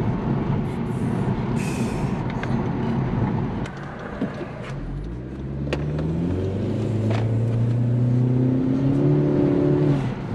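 Engine and intake of a 2018 Honda Civic hatchback Sport with a PRL short ram intake, heard from inside the car with the window partly down. It runs steadily, drops off about three and a half seconds in, then its note rises as the engine pulls again and holds steady near the end.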